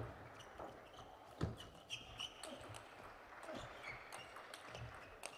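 Table tennis rally: the plastic ball clicks sharply off the rubber bats and the table about every half second, with a few short squeaks from the players' shoes on the court floor.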